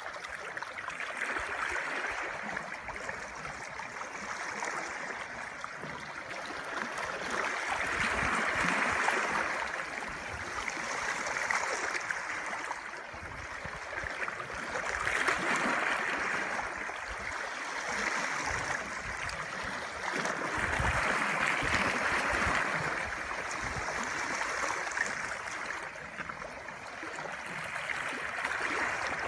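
Underwater recording: a rushing, bubbling water noise that swells and fades every few seconds.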